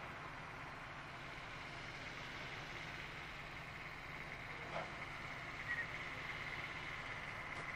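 Faint, steady outdoor background noise with a thin, steady high tone running through it; two brief faint sounds about five seconds in.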